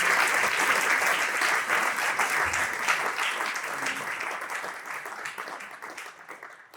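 Audience applauding, many hands clapping at once, fading away steadily over the last few seconds.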